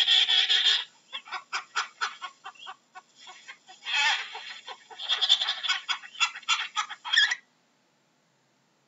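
A penguin giving a harsh, braying call. One long grating call ends about a second in, followed by rapid pulsed notes, another call about four seconds in, and a further run of pulsed notes that stops at about seven and a half seconds.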